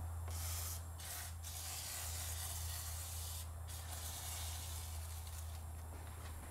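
Aerosol can of WD-40 spraying through its straw in several hissing bursts, two of them about two seconds long, lubricating a new tractor's stiff PTO guard plate. A steady low hum runs underneath.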